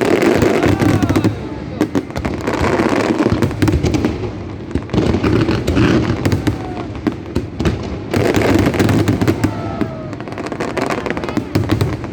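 Fireworks display: a dense crackle of many shells bursting and popping in quick succession, swelling and easing in several waves.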